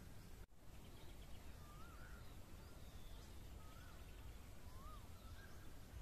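A bird repeating a short whistled note that rises and falls, four times about a second apart, over faint low rumbling background noise. The sound cuts out briefly about half a second in.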